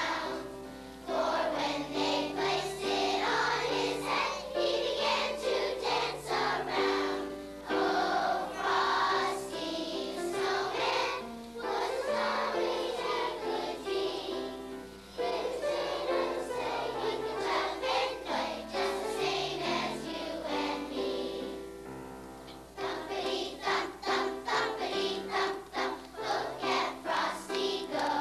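A large choir of young girls singing a Christmas song together in held, sustained phrases.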